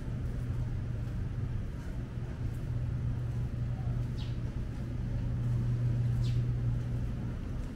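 Steady low machine hum, growing a little louder about five seconds in, over a low rumble. A short high chirp sounds once about four seconds in.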